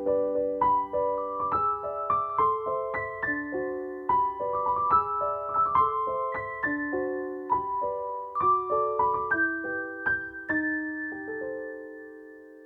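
Background piano music: a gentle melody of struck notes and chords, ending on a held chord that fades away.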